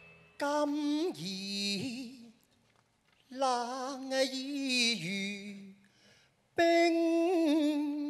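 A male Cantonese opera (粵曲) singer's voice singing three drawn-out, unaccompanied phrases with a wavering, sliding pitch, separated by short silences.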